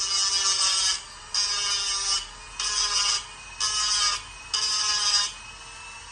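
A small grinder grinding down the heatsink's mounting feet in five short bursts of about a second each, its motor whining under a high gritty grinding noise. The feet are being taken down slightly so the thermal pad sits flush on the heatsink.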